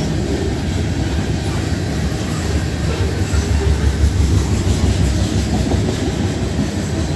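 Tank cars of a freight train rolling past close by: a steady rumble of steel wheels on the rails.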